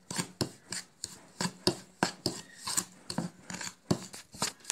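Steel spoon scraping against a ceramic plate while mixing crushed chocolate biscuit crumbs with melted butter, in short, uneven strokes about three a second.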